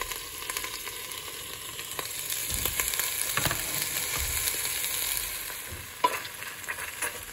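Beef cubes frying with a steady sizzle in a stainless steel pot as sliced onions and peppers are added and stirred in with a slotted spoon, which knocks and scrapes against the pot, sharply once about six seconds in.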